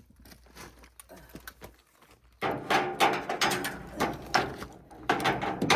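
Hose fittings being worked onto a water pump: a clatter of quick metal knocks, scrapes and rattles that starts about two and a half seconds in.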